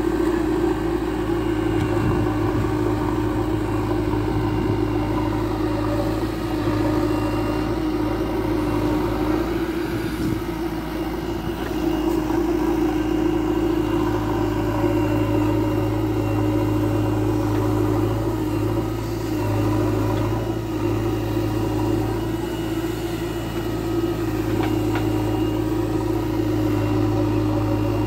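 JCB 3DX backhoe loader's diesel engine running steadily under load while the rear backhoe digs and lifts soil. Its level dips slightly now and then.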